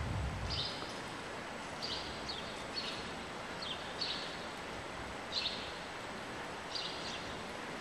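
Quiet, steady background noise of an indoor riding arena with horses moving around. Short, faint, high chirps come at uneven intervals about once a second.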